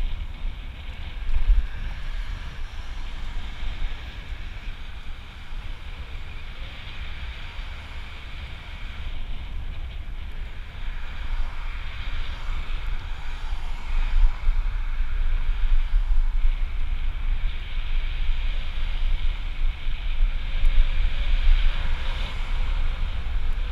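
Wind rumbling and buffeting on a handlebar-mounted action camera's microphone while cycling, over a steady rushing road noise; it grows a little louder about halfway through.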